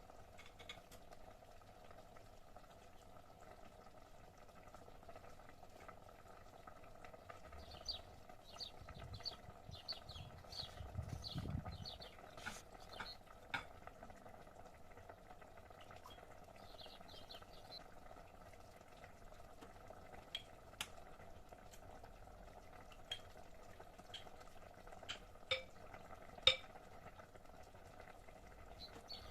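Faint kitchen sounds: a utensil clinking against a pot or dish a few times, the sharpest near the end, over a steady low hum. Short high bird chirps come in runs through the middle.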